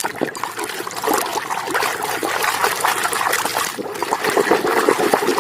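Water running and splashing steadily as a dirty toy vehicle is washed clean.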